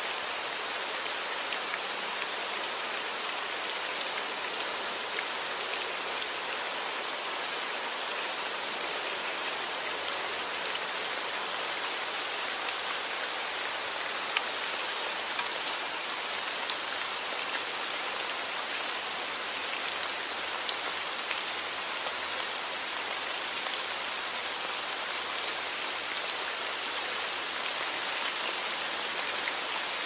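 Steady hiss of water, strongest in the highs, with scattered small drop-like ticks.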